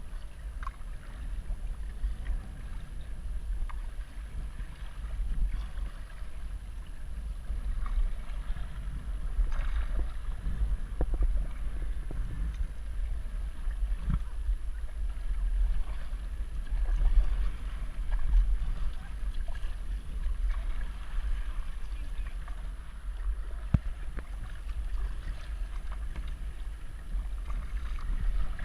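Kayak paddling on open water: paddle splashes and water moving around the hull, with scattered short splashes. Under it runs a steady low rumble of wind on the microphone.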